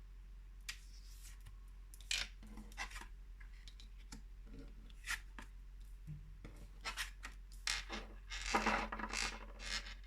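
A deck of oracle cards being shuffled and handled by hand: irregular papery rubbing and scraping strokes, busiest and loudest near the end.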